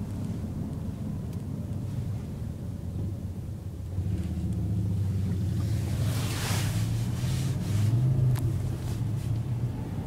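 Honda CR-V driving, heard from inside the cabin: a steady low rumble of engine and road noise that grows louder about four seconds in. A brief hiss comes about six seconds in.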